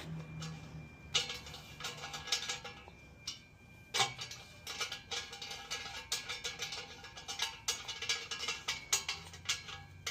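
Irregular sharp metallic clicks and clinks of hand tools against exhaust parts, coming thick and fast in the second half.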